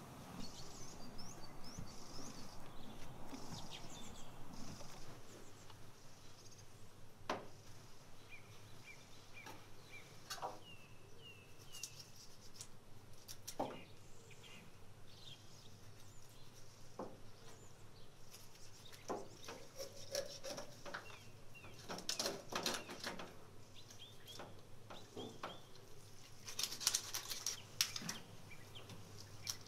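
Small birds chirping in short repeated calls, with scattered sharp clicks and knocks of a knife cutting raw whole chickens on a metal tray, coming thicker in the second half.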